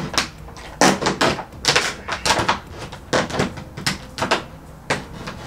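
A plastic jug packed with coins being pulled and torn open by hand. Irregular crackles and clinks come from the plastic and from the coins shifting inside.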